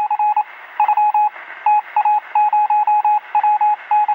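Morse code: a single steady beep tone keyed on and off in short and long elements at a brisk pace, over a steady hiss.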